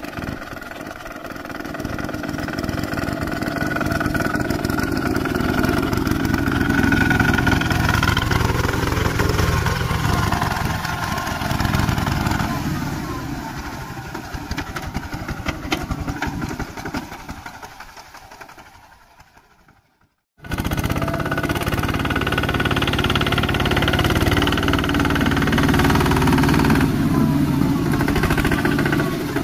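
Single-cylinder diesel engine of a two-wheel walking tractor running steadily under load as it churns through the mud of a flooded rice paddy. It grows louder over the first few seconds, fades off, cuts out briefly about two-thirds of the way through, then comes back loud.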